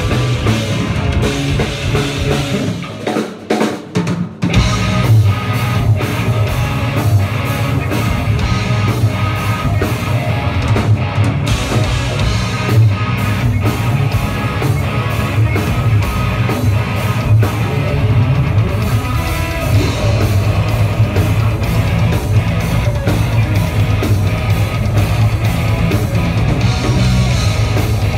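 Live heavy rock band playing loud and aggressive, with distorted electric guitar, bass and drum kit. About three seconds in, the band drops out into a few short stabbed hits, then comes crashing back in at full volume.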